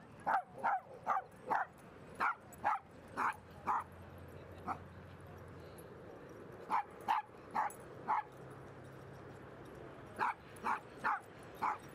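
A dog barking repeatedly in quick runs of three or four sharp barks, about two or three a second, with short pauses between the runs.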